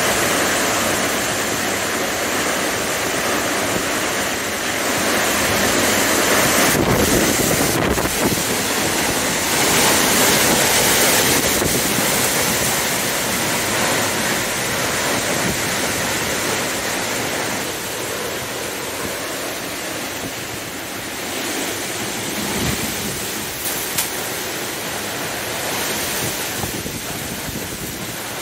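Derecho's straight-line thunderstorm winds blowing hard through trees, buffeting the microphone, with stronger gusts from about a quarter to nearly halfway through. One sharp crack late on.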